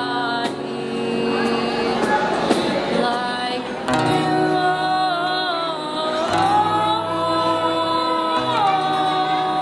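Live acoustic song: a woman's voice sings long, wavering notes over acoustic guitar chords, settling into a long held note near the end.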